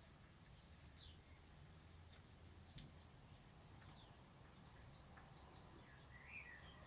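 Near silence: a faint low hum, with scattered faint bird chirps and one faint click about three seconds in.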